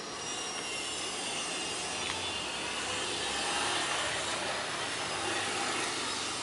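Steady rushing background noise, like a hiss, with no distinct strokes or events.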